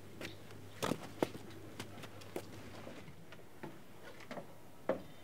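Irregular sharp clicks and taps, about half a dozen spread unevenly, over a faint low hum.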